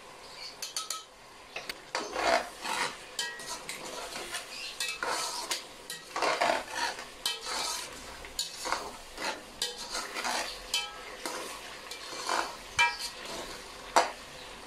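Slotted metal spatula stirring and scraping through thick chicken curry in a stone-coated nonstick pot, in irregular strokes with light clicks of metal on the pot, the curry sizzling underneath.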